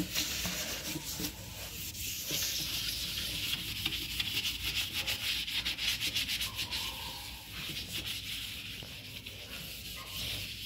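Green scouring pad scrubbing a white ceramic wash basin: a rapid back-and-forth rasping scrub, lighter in the last few seconds.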